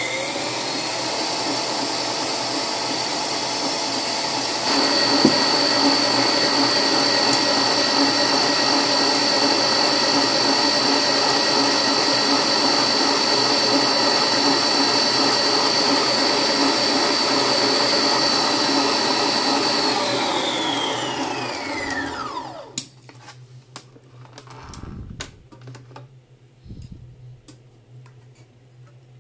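Al Saif stand mixer's electric motor driving a wire whisk in a stainless steel bowl: it spins up as the speed dial is turned and runs with a steady high whine. About five seconds in it steps up louder. Around 22 seconds in it winds down with a falling pitch and stops, followed by a few light knocks.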